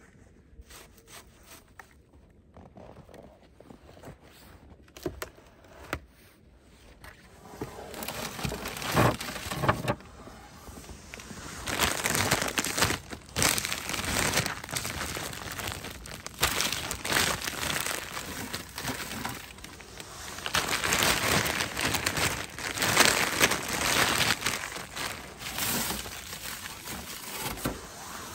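Frost-covered zip-top plastic bags of frozen meat crinkling and crackling as they are handled, starting about eight seconds in after a few seconds of faint scattered clicks and knocks.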